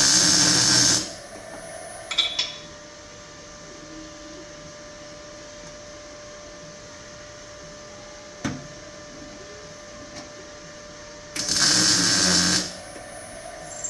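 Welding a repair plate into a car body panel: short runs of crackling weld, one in the first second, a brief blip about two seconds in, and another lasting about a second near the end, over a steady hum.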